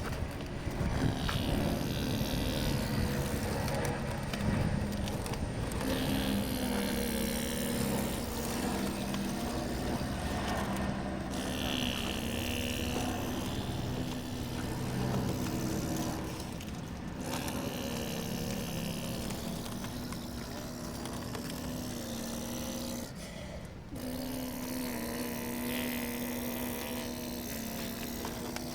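Radio-controlled model excavator working, its electric drive whining steadily; the whine changes pitch and stops briefly a few times as the machine moves.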